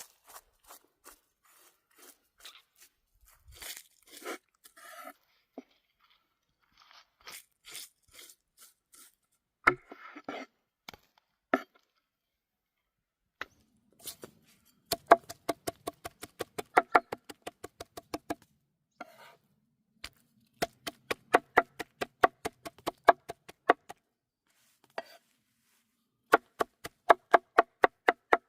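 Food being prepared by hand: some crunching and tearing, then a knife chopping on a cutting board in quick, even runs of about four strokes a second, each with a short ring.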